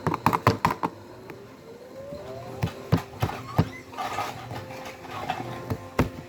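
A quick run of sharp clicks and taps in the first second, then scattered knocks, the loudest near the end, with a faint rising tone early on.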